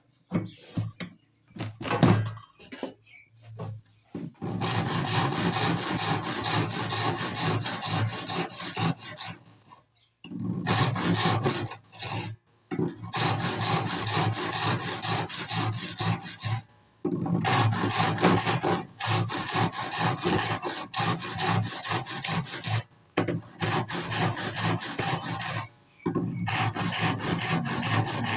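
Fast back-and-forth scraping of a hand tool working wood, in long runs broken by short pauses.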